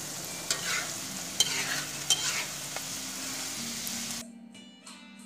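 Shrimp sizzling in a wok in a sauce reduced to a thick glaze, stirred with a metal spatula that clicks and scrapes against the pan a few times. About four seconds in the sizzling cuts off and gentle guitar music begins.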